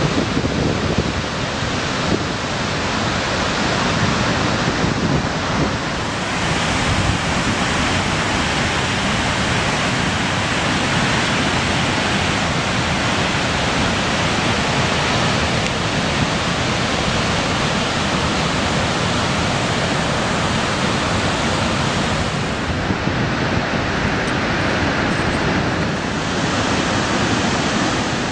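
Water from the Vøringsfossen waterfall rushing steadily, an even, unbroken noise.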